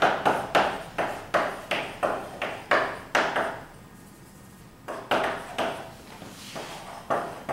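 Chalk writing on a blackboard: a run of quick taps and scrapes, about three strokes a second, with a pause of over a second midway before the strokes resume.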